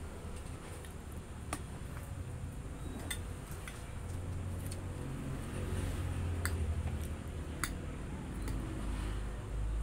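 Fork clinking and scraping on a ceramic plate during eating, several sharp clinks spread out, over low muffled chewing noise.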